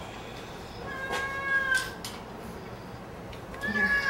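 Domestic cat meowing twice while being held: one drawn-out meow about a second in, and another starting near the end.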